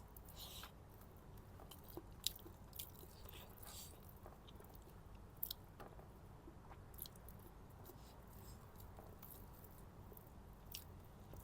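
Faint chewing and mouth sounds of someone eating biryani, with scattered soft clicks.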